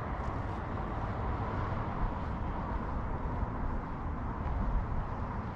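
Wind buffeting the action camera's microphone: a steady, uneven low rumble with a light hiss over it.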